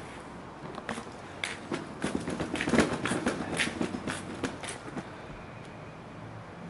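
A run of short, irregular taps and clicks that thin out after about five seconds, over a faint steady background hum.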